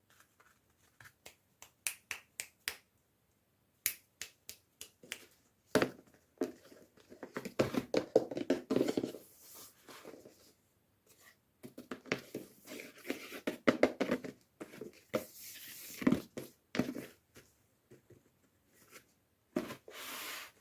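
Toy packaging being opened by hand: a run of sharp clicks and snaps, with stretches of crinkling and tearing.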